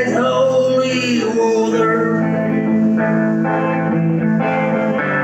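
Live rock band playing: guitars holding sustained chords, with a sung or bent note gliding in the first second.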